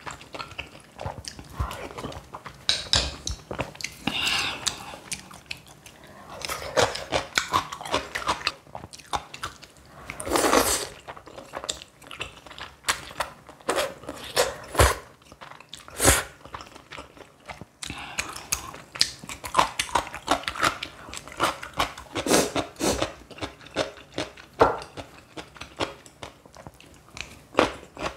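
Close-miked eating: a person biting and chewing crunchy food in a dense run of short crunches and mouth clicks.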